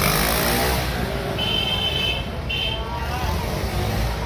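Street traffic: a steady low rumble of road vehicles, with two short high-pitched beeps about a second and a half in and again near three seconds.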